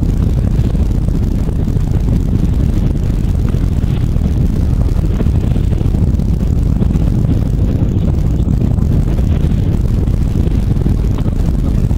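Boat under way, its engine running with a steady low rumble mixed with wind and water noise.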